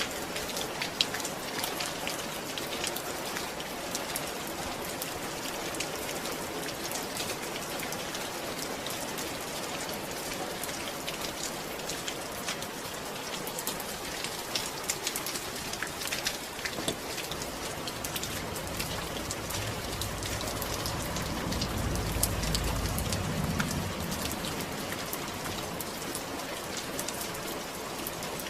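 Steady rain falling, an even hiss full of close, sharp drop ticks. About two-thirds of the way through, a deep low rumble swells and fades.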